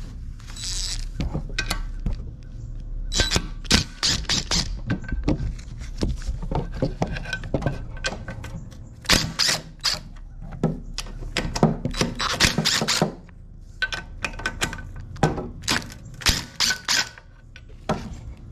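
Socket ratchet clicking in several quick runs as the bolts of a Honda HRX217 mower engine's valve cover are backed out.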